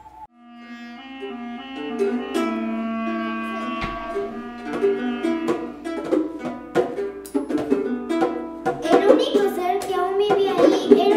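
Background music: a slow melody of held notes fades in, growing fuller and busier from about nine seconds in.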